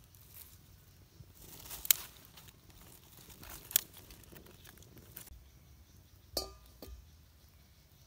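Thin dry sticks of a small wood fire crackling and snapping as it is fed by hand: three sharp cracks spread through, over light rustling.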